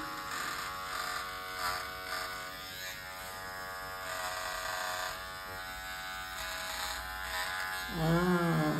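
A small electric motor buzzing steadily, with a person's voice coming in briefly near the end.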